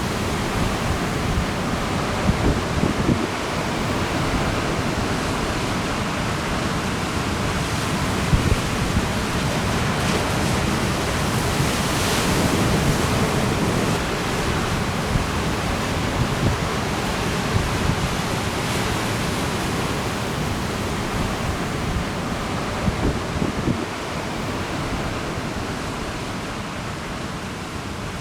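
Steady noise of ocean surf and strong trade wind, with irregular gusts buffeting the microphone.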